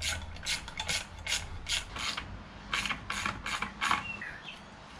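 Socket ratchet wrench on an extension clicking as it is swung back and forth, undoing bolts during an engine teardown. A quick run of ratchet strokes, about two a second, stops about four seconds in.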